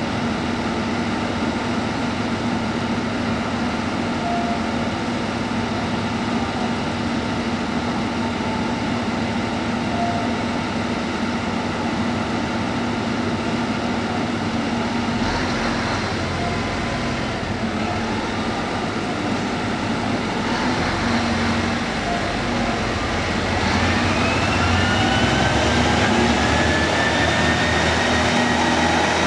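KiHa E130-500 series diesel railcar idling at the platform with a steady diesel hum. About 24 s in it pulls away: the sound grows louder and two rising whines climb as the engine and transmission take up the load.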